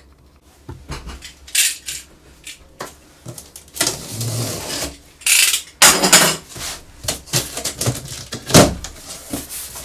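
Cardboard box being opened: a box cutter slitting the packing tape along the top seam, then hands working the tape and flaps, giving several short scraping and tearing sounds among scattered knocks.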